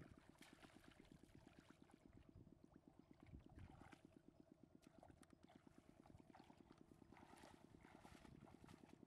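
Faint splashing and sloshing of muddy water as a woven bamboo basket is dipped and scooped through a shallow ditch, in several separate splashes. Under it runs a steady low putter from a distant engine.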